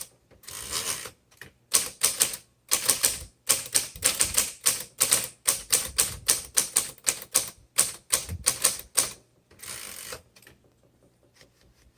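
Typing on a 1938 Remington Portable Deluxe manual typewriter: a run of sharp key strikes at about three to four a second, with a short rasping noise before and after the run, then quiet near the end.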